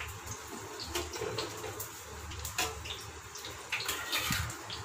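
The lid of a large aluminium pot of biryani is lifted off after cooking on low heat. Scattered metal clicks and knocks sound over a steady watery hiss from the hot, steaming pot.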